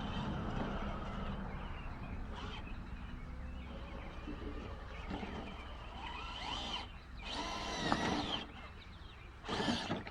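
A small electric motor whirring in bursts over a steady low hum: two louder runs in the second half, with pitch rising and falling.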